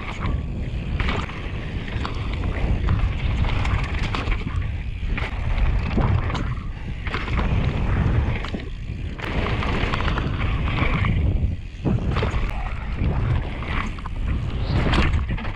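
Mountain bike riding fast down a dirt trail: wind buffeting the microphone with a steady low rumble, tyres running over dirt, and frequent sharp knocks and rattles from the bike over bumps.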